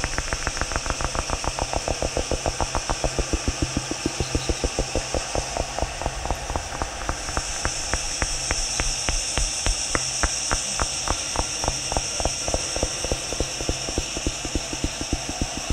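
Electroacoustic improvised soundscape: a fast, even train of clicks over a steady low hum and a band of high hiss, which grows brighter about seven seconds in.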